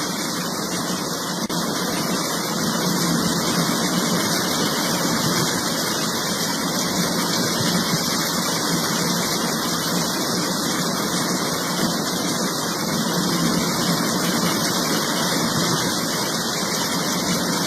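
Steady, loud rush of fast-flowing floodwater pouring over a waterfall, even and unbroken throughout.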